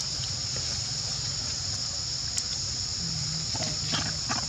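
Insects in the forest droning steadily in a high, even band, with a low steady hum underneath and a few faint ticks near the end.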